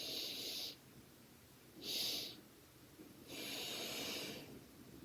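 A woman's audible breathing exercise: a breath in, a second short extra inhale about two seconds in, then a longer breath out.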